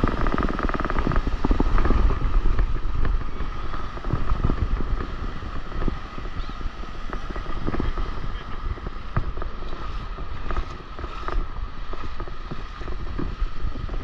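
Wind buffeting the microphone of a camera held just above the water, mixed with breaking surf and splashing water, loudest in the first few seconds.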